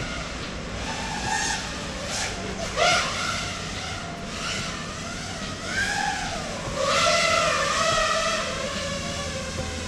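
5-inch FPV freestyle quadcopter with Emax Eco 2207 2400Kv motors on Gemfan three-blade props, whining in flight, its pitch rising and falling with the throttle. There is a sharp surge about three seconds in and a louder stretch around seven to eight seconds.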